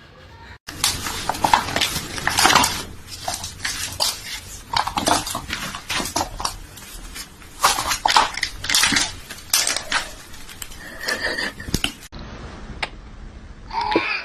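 Irregular clattering and clinking of hard objects, starting about a second in and stopping abruptly about twelve seconds in, followed by a quieter stretch.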